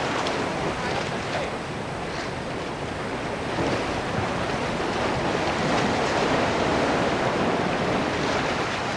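Sea waves washing against a rock wall, with wind buffeting the microphone; the wash swells a little louder in the second half.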